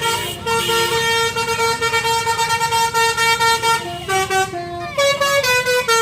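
Bus's 'basuri' telolet air horn playing a melody: steady multi-tone notes that step up and down in pitch, sounded over a low engine rumble.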